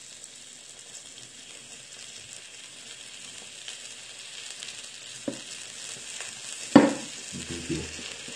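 Steady sizzling hiss, as of meat frying on a grill, under a large kitchen knife slicing through a slab of raw wild boar meat on a wooden cutting board. A small knock comes a little past halfway, then a sharp knock about two-thirds of the way through, the loudest sound.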